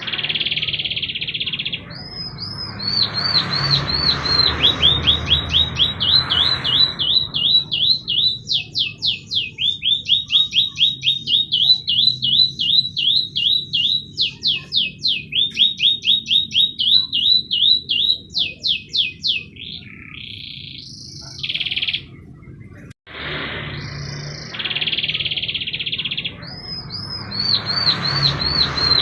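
Canary singing a long song of rapid trills, each phrase a quick run of the same high note repeated many times a second, with harsh rasping passages near the start. The song cuts out briefly about 23 seconds in and then starts over.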